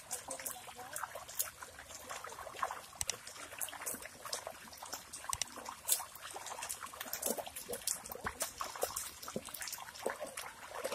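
Irregular wet splashing and squelching in shallow muddy water: many short splats as bare feet wade and hands dig through the mud of a drained pond.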